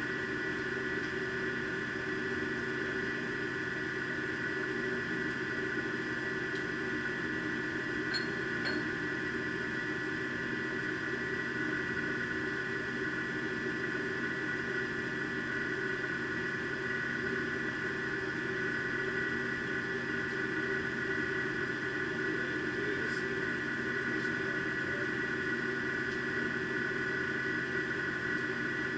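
Steady hum and whine of running machine-shop machinery, several steady tones that do not change, with a few faint clicks about eight seconds in.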